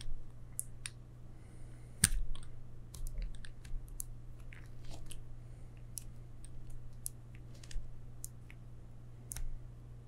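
Irregular small plastic-and-metal clicks as a Master Lock 1523D combination padlock's code wheel is turned number by number with the shackle pulled out under tension, feeling for the gate. The sharpest click comes about two seconds in.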